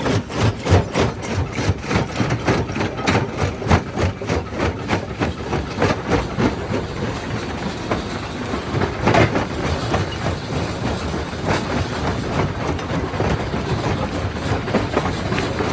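Primary jaw crusher crushing rock: a constant run of quick, rhythmic knocks and cracks over a heavy rumble, with a louder crash about nine seconds in.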